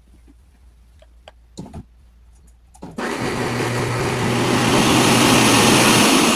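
Bagged vacuum cleaner switched on about halfway through: after a few light clicks its motor starts abruptly and runs with a steady rushing whir over a low hum.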